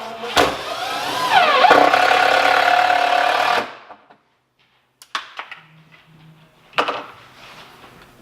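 A power drill driving a screw into wood for about three seconds: the motor pitch dips as it takes the load, holds steady, then stops abruptly. A few light clicks follow, and then a sharp knock.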